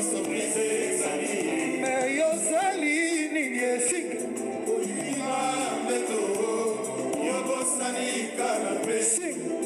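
Live band playing Congolese rumba: several male singers sing together over electric guitars and drums.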